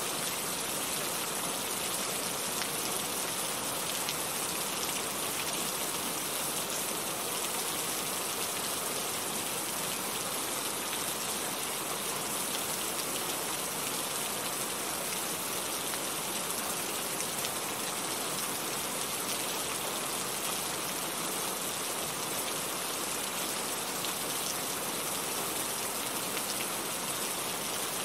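Heavy rain falling steadily, a dense even hiss of drops on surfaces with fine individual drop ticks.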